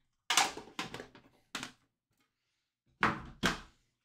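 A trading-card tin and cards being handled on a table: a few short, light knocks and scrapes. Three come in the first couple of seconds, and two more come close together about three seconds in.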